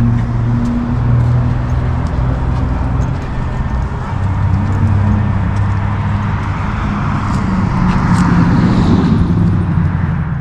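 A car engine running close by with a steady low hum. The sound builds near the end and then cuts off suddenly.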